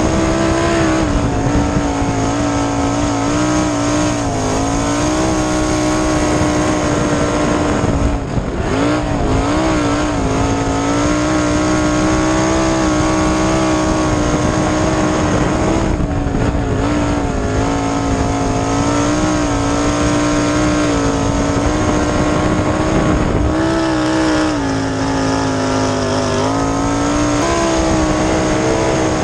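410 cubic-inch V8 of a winged World of Outlaws sprint car at racing speed on dirt, heard from the cockpit. The engine holds high revs and its pitch sags briefly every few seconds as the throttle is eased for the corners, with a longer dip near the end.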